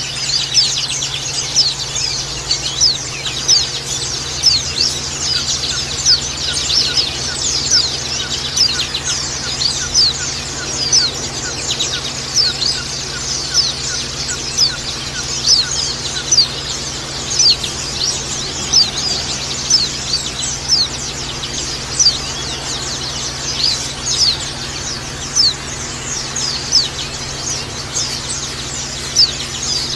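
A flock of white-eyes (pleci) chirping without a break: a dense chatter of high, thin, falling notes, with louder calls standing out about once a second.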